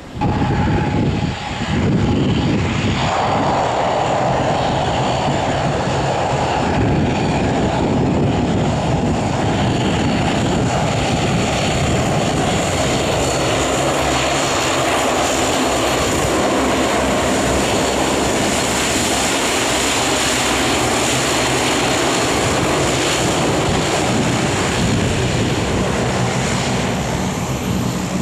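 Airliner engines running loud and steady as the aircraft passes close, with a high whine over a dense roar.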